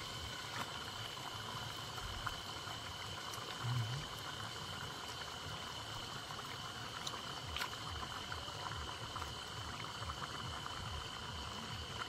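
Mutton and onions frying in oil in a pot over a wood fire: a soft steady sizzle with scattered crackles and a few sharper ticks. A steady high-pitched drone of night insects runs underneath, and there is one brief low thump about four seconds in.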